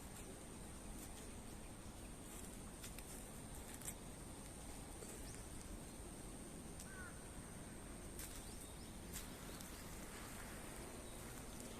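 Faint outdoor ambience: a steady high-pitched whine, scattered small clicks, and one short bird chirp about seven seconds in.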